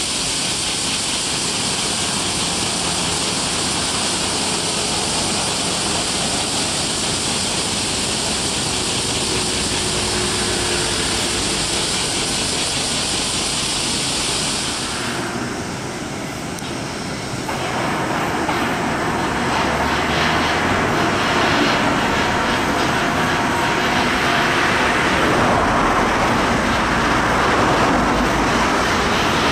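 Loud, steady outdoor background noise: a high hiss for about the first half, giving way after about halfway to a louder, fuller rumble.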